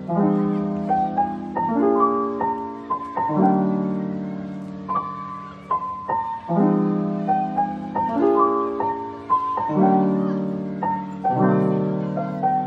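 Background music: a gentle piano piece, chords and melody notes struck and left to fade in a repeating pattern.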